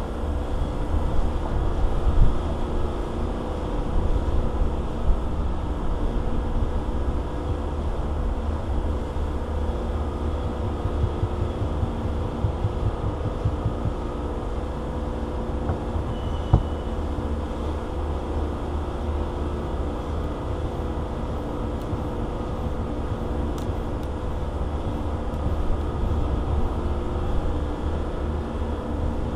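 Steady mechanical drone holding a constant pitch over a low rumble, with a few faint knocks.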